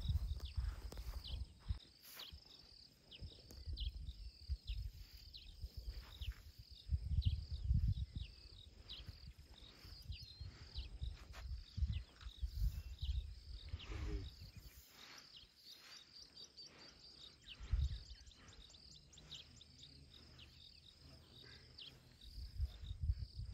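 Outdoor bush ambience: a steady high-pitched insect drone with scattered bird chirps. Several times, low rumbling rises and fades away again.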